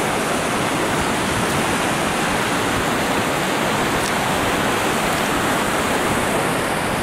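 A mountain stream rushing and splashing over rocks, a steady, unbroken rush of water.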